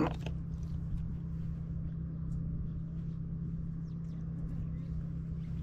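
Steady low background rumble, with a short sharp rustle right at the start and faint scattered clicks and rustles as a small tilapia is held and unhooked by hand.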